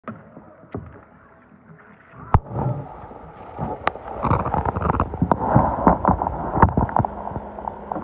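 Sloshing and gurgling water around a camera dipped below the surface, turning into the muffled, busy noise of moving water heard underwater, louder from about two seconds in. Sharp clicks cut through it several times.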